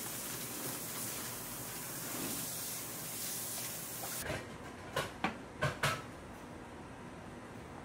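Steady hiss of kitchen background while thick cake batter is poured into a paper-lined tray. After an abrupt change about four seconds in, four sharp clicks come within a second as a long blade is pressed down through a sheet of baked Taiwanese castella to the table beneath.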